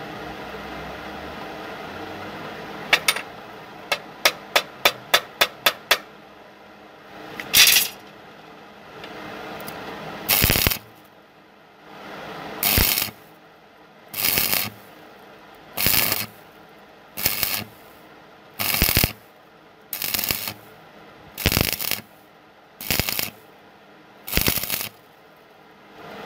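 Stick (arc) welding a steel sprocket onto a steel plate: after a quick run of sharp metallic taps, the arc crackles in about ten short bursts of roughly a second each, one every second and a half or so, as the weld is laid in short stitches.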